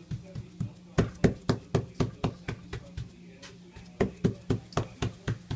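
Palm patting and pressing a round of whole-wheat bread dough flat on a semolina-dusted baking tray: quick soft slaps about four a second, in two runs with a short pause between them.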